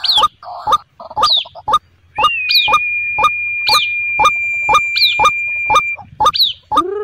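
White-breasted waterhen calling: a regular series of short, sharp, downward-flicking notes, about two a second. A steady high tone is held through the middle for about four seconds.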